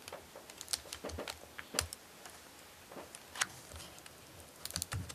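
Scattered small clicks and taps from fingers working the display signal-cable connector and its adhesive sticker on the back of a laptop LCD panel, with a quick run of clicks near the end.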